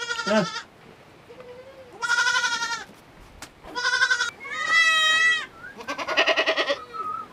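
Goats bleating: four separate calls from about two seconds in, each under a second long, one of them higher-pitched and wavering.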